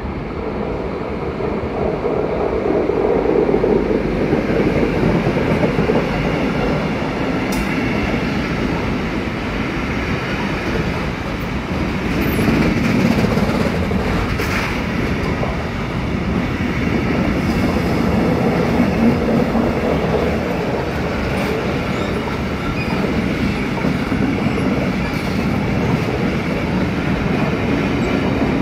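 Freight train hauled by electric locomotive E191 014 passing close by: a steady rumble and clatter of the wagons' wheels on the rails, with a few sharp clicks. It swells in the first few seconds as the locomotive draws level.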